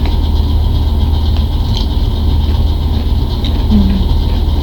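A steady low hum runs throughout, with faint crunches of wavy potato chips being chewed about two seconds in and again a little after three seconds.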